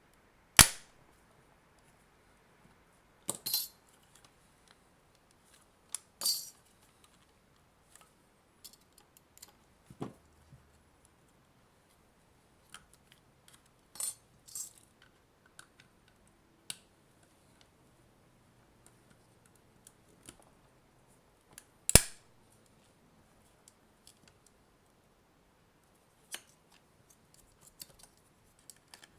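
Tool working at the hard plastic casing of a Nintendo Switch AC adapter while it is being forced open: a series of sharp clicks and snaps at irregular intervals, the loudest near the start and about three-quarters of the way through.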